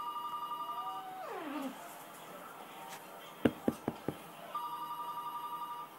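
A telephone's electronic two-tone trill rings at the start and again near the end. Between the rings a dog gives a falling whimper about a second in, then four short sharp yaps in quick succession about three and a half seconds in.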